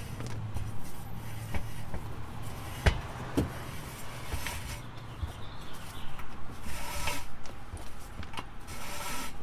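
A 1-inch nylon ratchet strap being laced through a steel rack: the webbing rubs and rustles as it is pulled through, with two light knocks about three seconds in.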